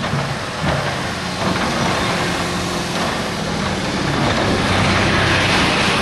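Link-Belt 210 hydraulic excavator working, its diesel engine running under load. A few knocks sound in the first second and a half, and the engine grows louder about two-thirds of the way in.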